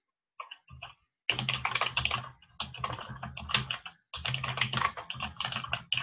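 Typing on a computer keyboard: a few scattered keystrokes, then a fast steady run of keys from about a second in, with a short break about two-thirds of the way through.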